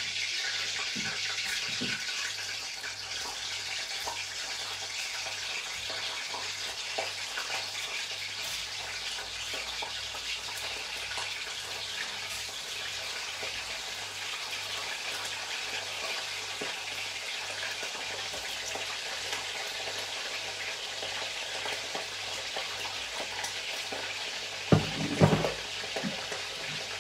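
Food sizzling steadily in a hot cooking pot, with a few louder clatters near the end.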